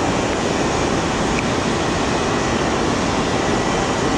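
Steady rushing of water pouring over a dam spillway, an even, unbroken roar of falling water.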